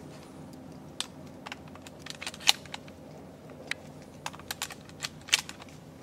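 A dozen or so sharp, irregular clicks and taps, the loudest about two and a half seconds in and another cluster near the end, over a faint steady background.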